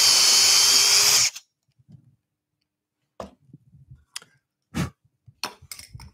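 Cordless drill driver in high gear boring a 10 mm hole in hard oak, running at a steady pitch and stopping abruptly about a second in. Then several light knocks as the drill is set down and the board is moved on the workbench.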